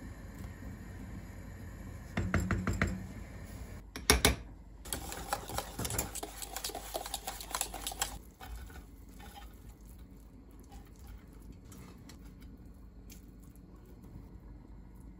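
Kitchen clatter of utensils and glassware. A few clinks come first, then one sharp knock about four seconds in, then a run of rapid rattling clicks until about eight seconds in. Fainter scattered clicks of spoons against a glass dish follow.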